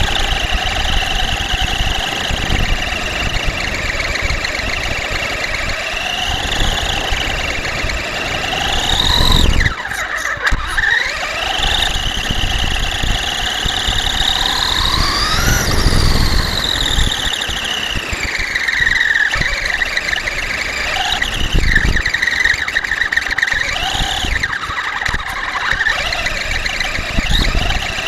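Electric RC monster truck's motor whining, its pitch sliding up and down again and again with the throttle, over rough tyre and ground noise. The whine drops out briefly about ten seconds in.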